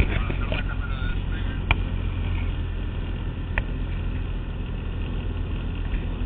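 Light aircraft's propeller engine running steadily, heard inside the cockpit, with two short sharp clicks about a second and a half apart in the first four seconds.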